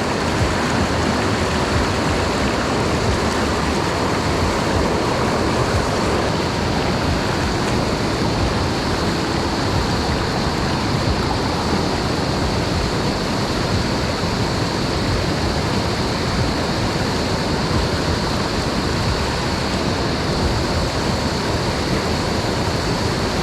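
Mountain stream water pouring over rocks and small waterfalls, a loud, steady wash of noise. A steady high drone of cicadas runs underneath it.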